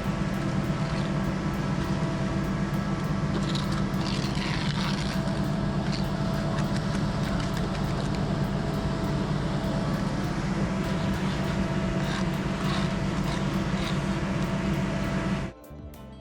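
A heavy engine running steadily at constant speed, with a few brief scrapes about four seconds in. It cuts off abruptly near the end.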